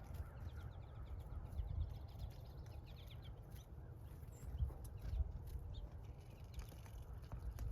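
Small birds chirping at a feeder, with a quick run of rapid chirps in the first half and scattered single chirps after, over a steady low rumble.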